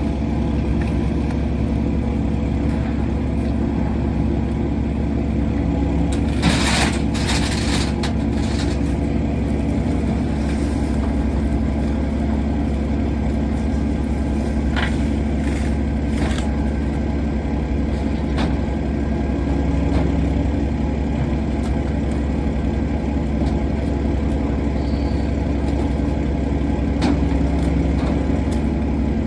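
Steady low drone of a fishing boat's diesel engine running, with scattered knocks and clatter, a cluster of them about six to nine seconds in, as the catch and plastic tubs are handled.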